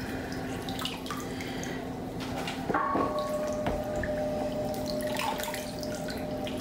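Water being poured and trickling, with drips, over a person's back. A steady low hum runs underneath, and after a knock about three seconds in a clear steady ringing tone joins.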